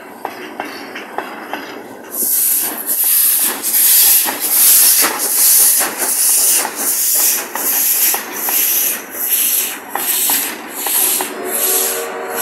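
Armored train rolling past: steel wheels click evenly over the rail joints, and from about two seconds in a steam locomotive's exhaust joins them with a rhythmic hissing chuff, roughly two beats a second.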